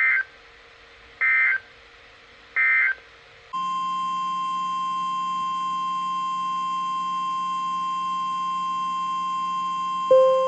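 Three short data bursts of an Emergency Alert System end-of-message code, about a second apart, then the steady single-pitched 1050 Hz NOAA Weather Radio warning alarm tone. Near the end, over the tone, a short loud ding fades over about a second.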